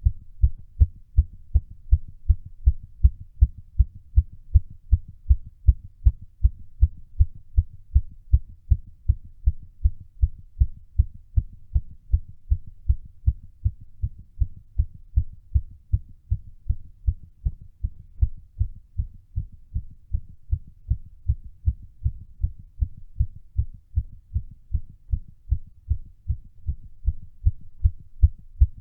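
A human heart beating fast and steadily, raised by a workout: a long, even run of short low thumps.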